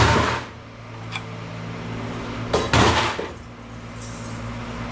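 Pieces of sheet aluminum clanking as they are set down and stacked on a scale: a loud clank at the start, a faint tick about a second in, and two more clanks just before three seconds. A steady low hum runs underneath.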